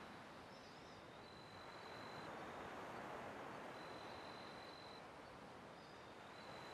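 Faint nature-style ambience: a soft hiss that swells and fades every few seconds. A thin, high, steady whistle recurs three times, about every two and a half seconds, each lasting about a second.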